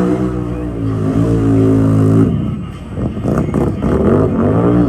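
ATV engine revving hard and held high for about two seconds, then easing off and revving up again.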